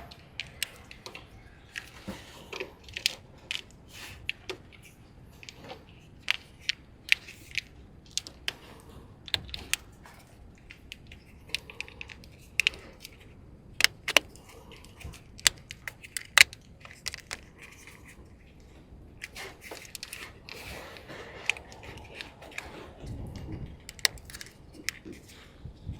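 Hands working on a car's wiring harness: irregular sharp clicks and crackles of plastic wire loom and wiring being handled and fitted.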